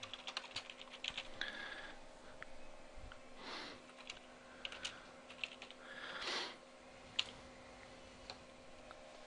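Keystrokes on a computer keyboard, a quick run of clicks at first and then scattered single keys, with two soft rushing sounds a few seconds apart and a faint steady hum underneath.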